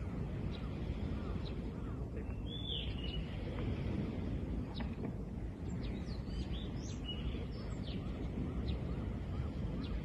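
Wild birds chirping in short, scattered calls, one longer arching call about two and a half seconds in, over a steady low rush of sea waves.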